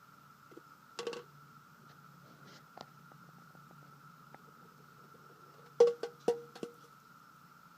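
Steady high drone of a periodical (17-year) cicada chorus, with one sharp knock about a second in and a quick run of four louder knocks or clicks near the end.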